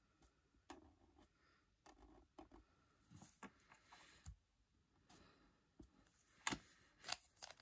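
Faint, scattered scratching and tapping of an alcohol marker's tip colouring a stamped image on cardstock, with a couple of sharper clicks near the end.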